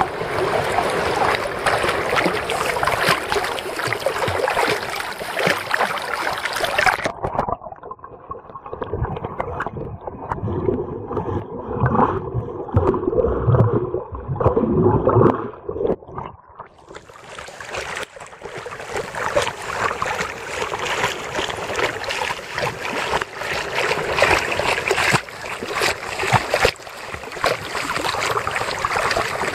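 Sea water sloshing and splashing right at a camera held at the surface beside a swimming dog. For about ten seconds near the middle the camera goes underwater and the sound turns muffled and low, with gurgling, before the surface splashing returns.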